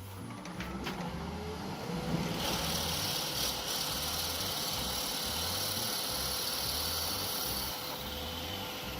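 Wood lathe spinning up, its motor whine rising in pitch over the first two seconds and then holding steady. A stationary drill bit bores into the spinning cherry burl blank, making a steady hissing cut from about two and a half seconds in until near the end, when the bit is backed out.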